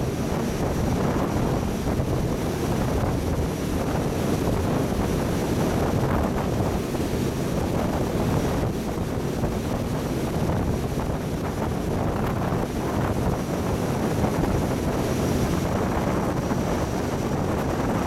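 Steady rushing wind noise on the microphone mixed with the churning white-water wake and deep engine rumble of a water-jet fast supply vessel running at high speed, powered by four MTU 16V4000 diesels driving Hamilton water jets.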